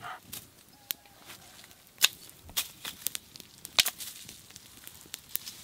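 Dry sticks and leaves snapping and crackling in sharp, irregular cracks as a small kindling fire catches; the loudest crack comes about two seconds in.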